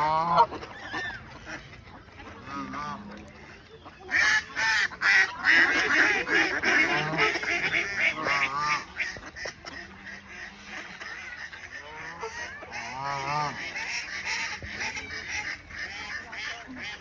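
Geese honking repeatedly, with many overlapping calls from a flock that are busiest from about four to ten seconds in.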